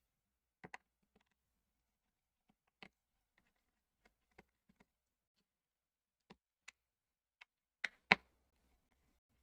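Light, scattered clicks and taps of a precision screwdriver and tiny screws as the phone's screws are taken out one by one, about one click a second, with two louder clicks close together near the end.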